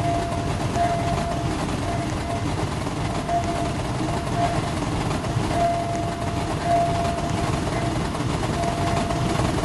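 A passenger train running past a level crossing, with a steady rolling noise throughout. Over it a thin high tone keeps breaking off and starting again.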